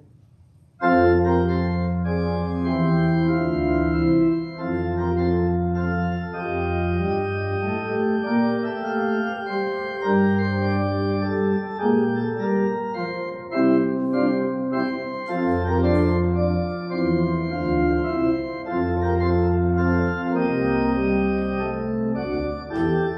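Organ playing slow, sustained chords over a deep bass line, starting about a second in: a closing postlude after the benediction.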